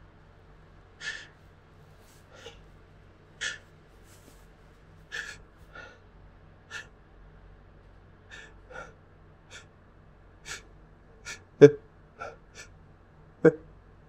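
A person's sneeze build-up: about fifteen short, sharp gasping breaths in through the nose and mouth, coming faster toward the end, the two loudest and most voiced near the end.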